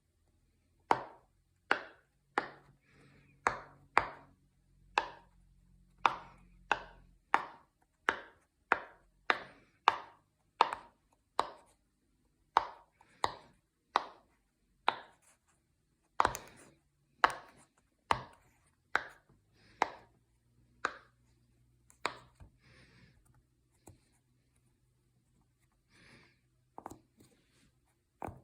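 Silicone pop-it fidget toy bubbles pressed one after another, each giving a short sharp pop, roughly one to two a second for about twenty seconds. After that come only a few faint pops and rustles.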